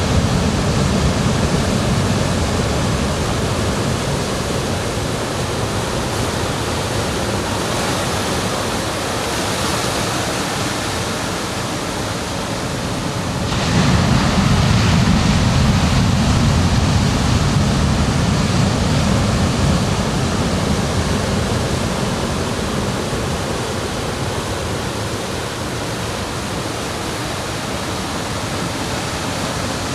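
Ocean surf washing on a beach: a steady rush of breaking waves, with one wave surging louder about fourteen seconds in and slowly dying away.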